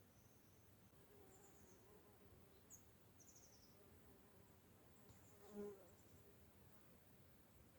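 Faint buzzing of a flying insect's wings: a steady hum, then a brief louder buzz about five and a half seconds in as it passes close.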